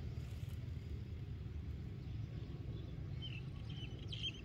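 Steady low outdoor rumble, with a few short bird chirps about three seconds in and again near the end.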